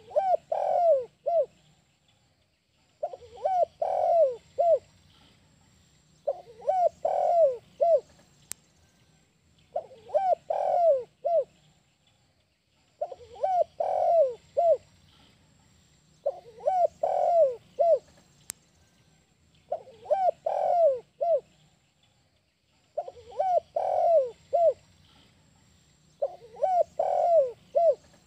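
Spotted dove cooing: a phrase of four or five short coos ending in one separate 'kuk' note, the 'kuk 1' song type, repeated about every three seconds, nine times in all.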